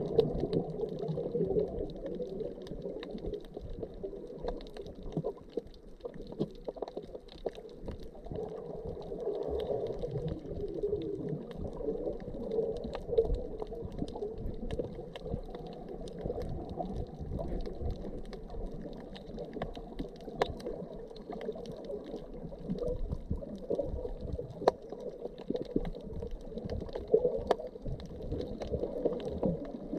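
Muffled underwater sound picked up by a camera held below the surface: a low, steady wash of moving water with gurgling and scattered sharp clicks.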